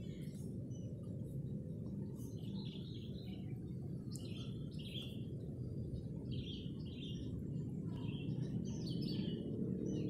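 Sooty-headed bulbuls calling in several short phrases of chirpy notes, over a steady low background rumble.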